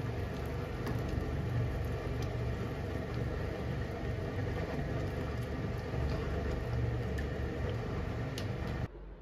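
Curry simmering in a frying pan on a gas stove: a steady low rumble with small scattered clicks as a ladle stirs it. It cuts off abruptly near the end.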